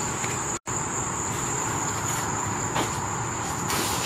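Crickets chirping in a steady, unbroken high trill over background hiss, dropping out for an instant about half a second in.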